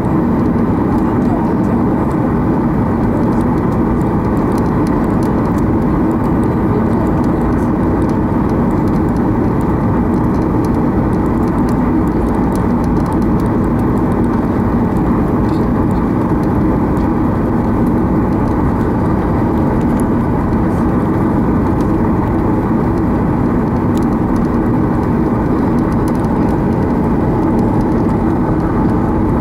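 Cabin noise of a Boeing 737-800 taxiing: its CFM56-7B turbofans run steadily at low taxi power, a constant hum and whir with no spool-up, and a few faint ticks.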